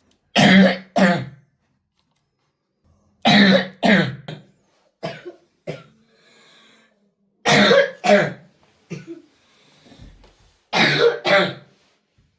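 A 12-year-old boy's coughing fit: four bouts of two quick coughs each, about three seconds apart, with a few weaker coughs in between. It is his chronic cough, undiagnosed for years.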